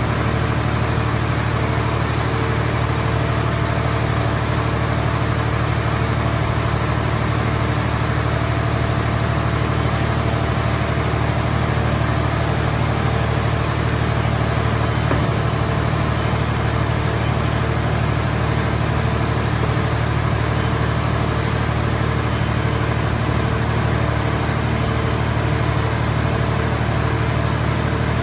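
Engine of a mobile car-body baler running steadily at an even idle: a constant low hum with a few fixed tones, no strokes or impacts.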